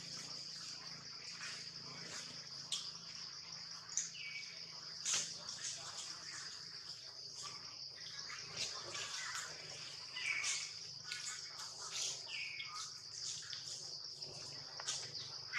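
Outdoor forest ambience: insects droning steadily at a high pitch, with a few short bird chirps and scattered faint clicks.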